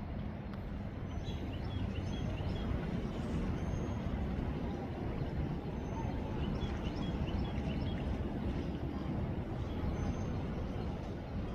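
Steady low rumbling outdoor noise, with faint high chirps now and then.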